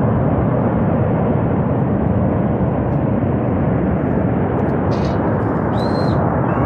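Loud, steady roar of a Himalayan river in flood, a torrent of rushing floodwater surging downstream. Two brief high-pitched calls cut in near the end.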